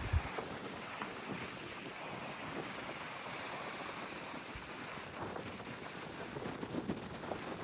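Rainwater runoff rushing along in a steady flow. Wind buffets the microphone with low thumps right at the start.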